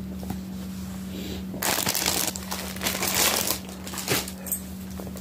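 Plastic packaging crinkling and rustling as it is handled, starting about a second and a half in and dying down near the end.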